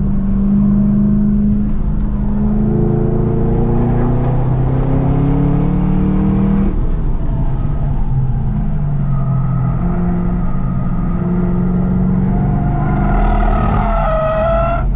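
Car engine heard from inside the cabin at track speed, its pitch climbing steadily under acceleration. About seven seconds in the sound changes abruptly, then the engine runs at a steadier pitch, rising again near the end.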